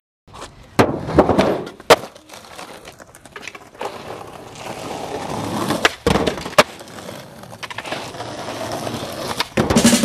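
Skateboards rolling on asphalt, with several sharp pops, clacks and landing impacts as the boards hit parked cars' hoods.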